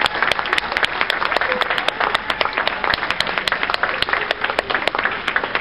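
Audience applauding, a dense patter of hand claps with many individual sharp claps standing out, steady throughout.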